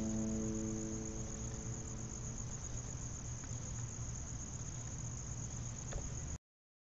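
Crickets chirping in a steady high trill, with the last chord of a song fading out over the first two seconds or so. The sound cuts off suddenly near the end.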